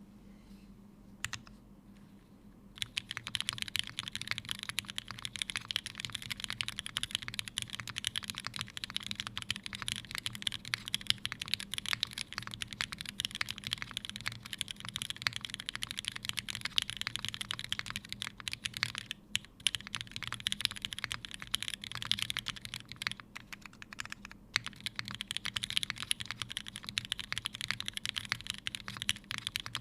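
Fast, continuous typing on a Unikorn r2.1 mechanical keyboard with an aluminium plate, lubed and filmed Cherry Hyperglide linear switches and GMK keycaps. The typing starts about three seconds in after a single key press, with a couple of brief pauses.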